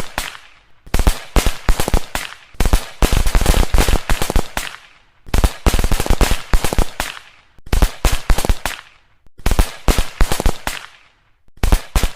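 Firecrackers going off in rapid strings of sharp cracks, in about seven bursts of a second or so with short pauses between.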